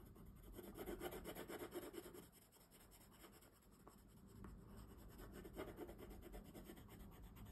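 Faint scratching of a wooden coloured pencil shading back and forth on paper, with a short lull about two seconds in before the strokes pick up again.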